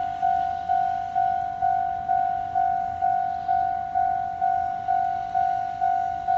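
Japanese railroad crossing warning alarm ringing its repeating 'kan-kan' note, about two strikes a second, each strike fading quickly before the next.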